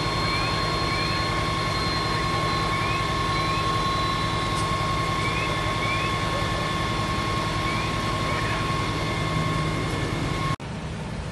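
Fire engine's diesel engine running at high speed to drive its water pump, a steady loud drone with a held high-pitched whine, and faint short rising chirps in pairs every couple of seconds.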